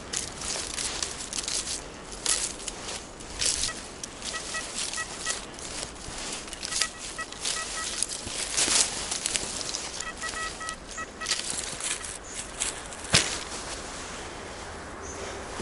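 Crackling and rustling in forest leaf litter, with three short runs of a metal detector's rapid pulsed two-pitch beeping as it signals a target. One sharp knock comes near the end.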